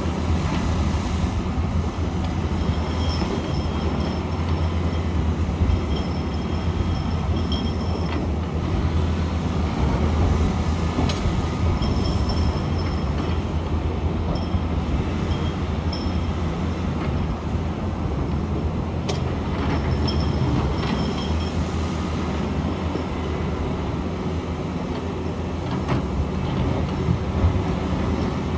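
SANY SY500H 50-ton excavator working: a steady, loud low engine rumble, with high-pitched squeals coming and going and a few sharp knocks.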